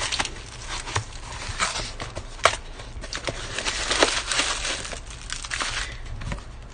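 Rustling and crinkling with many scattered clicks and taps, from a handheld game console and its packaging being handled close up.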